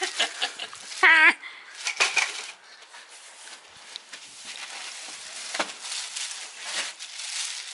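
Rustling and scraping as frame pieces are lifted out of a cardboard box and handled, in irregular bursts. A short voiced exclamation comes about a second in.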